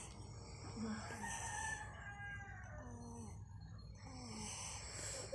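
A rooster crowing faintly: one long, slightly falling call about a second in.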